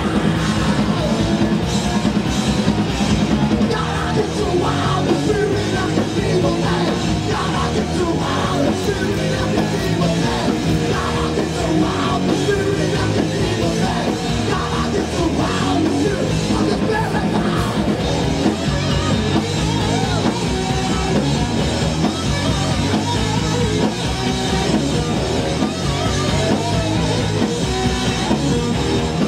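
Live punk rock band playing: distorted electric guitar, bass guitar and drums, with shouted vocals.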